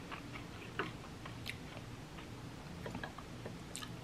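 Faint, soft chewing of a mouthful of cooked ackee, with a scattering of small mouth clicks.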